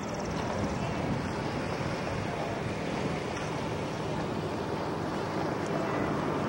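Steady rushing noise of wind on an outdoor microphone, with no distinct events standing out.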